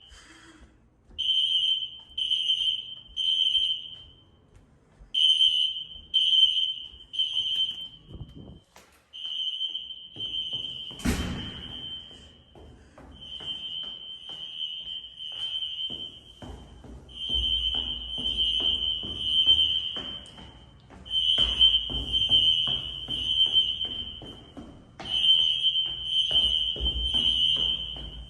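System Sensor SpectrAlert fire alarm horns (2006 horn-strobes) sounding the three-beep evacuation pattern: a high beep three times, a pause, then again, over and over. In the middle stretch the beeps run together into a near-continuous tone, and there is one sharp thump about eleven seconds in.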